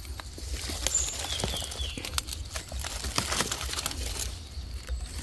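Dry fallen leaves crackling and rustling in quick, irregular clicks as gloved hands dig through the leaf litter and cut a small mushroom loose with a knife.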